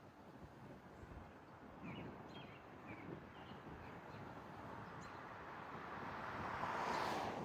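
Faint wind and road noise of a car driving in a storm, swelling to a rushing peak near the end and cutting off suddenly, with a few short high chirps about two to three seconds in.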